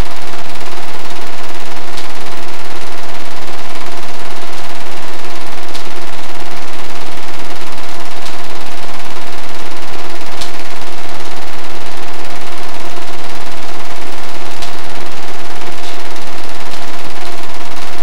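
8mm film projector running: a steady rapid mechanical clatter with a constant hum.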